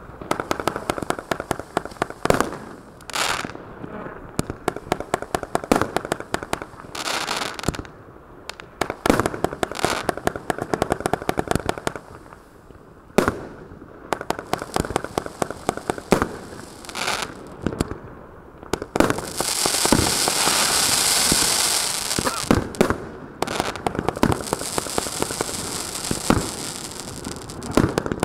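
A 100-shot, 20 mm consumer firework cake firing: an irregular rapid string of sharp pops and bangs with dense crackling. About two-thirds of the way through there is a loud hissing stretch of a few seconds.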